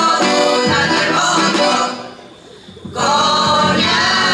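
Women's folk choir singing a Bulgarian folk song, accompanied by accordion and drum. The music breaks off briefly about two seconds in, then resumes.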